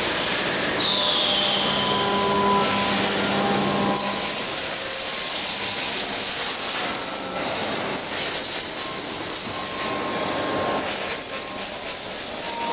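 Steady loud hiss of factory machinery, with faint steady whining tones over it and a brief high whistle about a second in.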